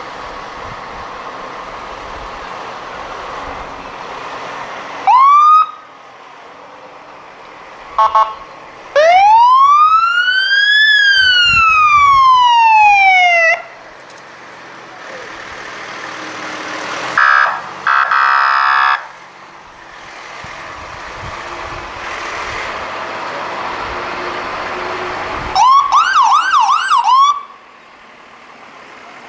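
Emergency vehicles sounding their sirens over a steady engine hum. First comes a short rising whoop, then one long wail that rises and falls. A loud horn blast follows about halfway through, and near the end a quick series of yelps.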